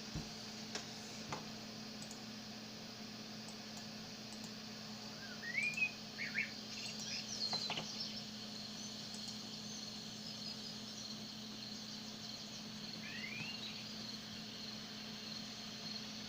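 Birds chirping: a few short rising chirps about five seconds in and again near the thirteen-second mark, over a steady low hum and an even high-pitched hiss.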